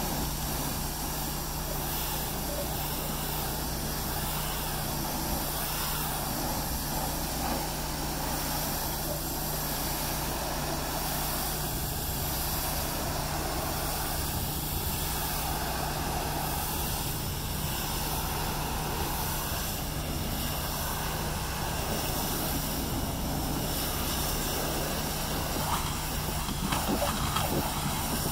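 Pressure washer running steadily: a constant motor-and-pump drone under the hiss of the high-pressure spray striking a truck's metal body.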